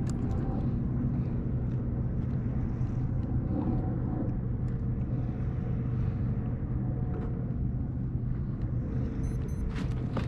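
Steady low motor hum holding a few constant tones, over wind and water noise, with a few faint clicks near the end.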